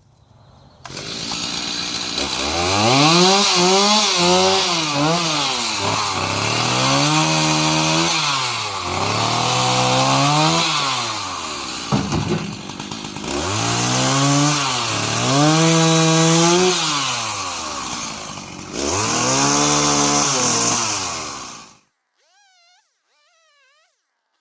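Chainsaw running and revving up and down over and over while limbing a fallen tree, then cut off sharply near the end.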